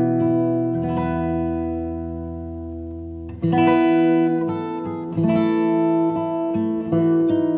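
Background music on acoustic guitar, strummed chords. One chord is left to ring and fade for a couple of seconds before the strumming picks up again about halfway through.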